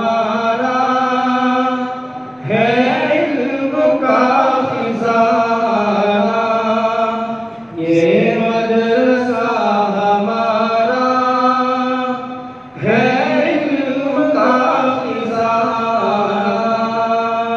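A naat, an Islamic devotional song in Urdu, sung by a single voice in long, drawn-out melodic phrases, with short breaks between phrases about 2.5, 8 and 13 seconds in.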